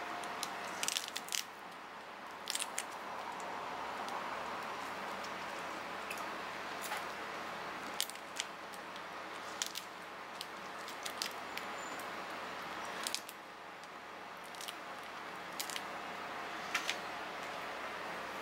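Mantis shrimp shells being cracked and peeled apart by hand: irregular crisp cracks and snaps, a few of them close together, over a steady background hiss.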